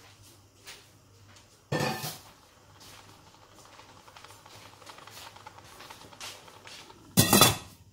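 Stainless steel cookware clanking: a knock about two seconds in and a louder clatter near the end, with a faint steady hiss between.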